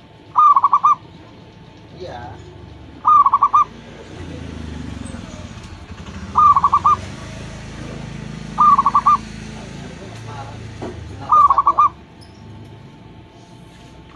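Zebra dove (perkutut) cooing: five short, loud phrases, each a quick run of staccato coos, repeated every two to three seconds.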